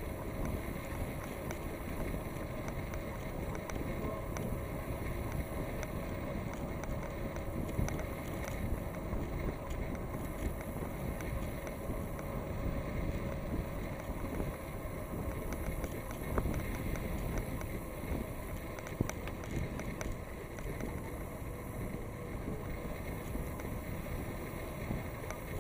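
Steady wind rush on the microphone of a bicycle in motion, with scattered light ticks.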